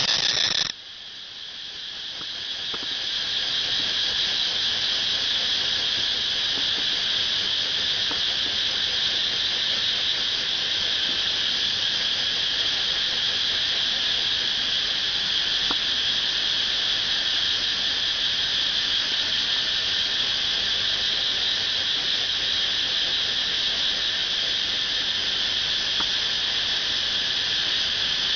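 Cicada calling: its loud, high buzz cuts off suddenly about a second in, then starts again and swells over a few seconds into a steady buzz.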